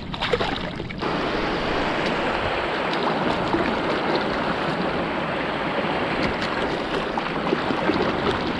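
Seawater splashing and rushing steadily in a rock pool as fish fillets are swished through it by hand to rinse them.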